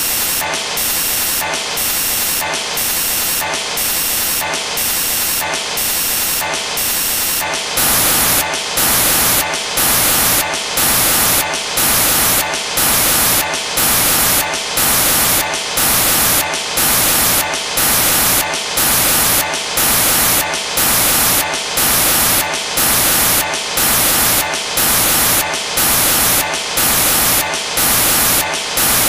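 Loud static hiss that cuts out briefly about once a second in an even rhythm, its tone shifting about eight seconds in: a corrupted recording, its picture frozen on a single frame.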